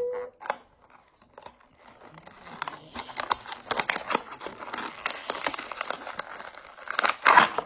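Plastic toy packaging being crinkled and torn open by hand: a dense run of quick crinkles and small rips starting a couple of seconds in, with the loudest tear near the end.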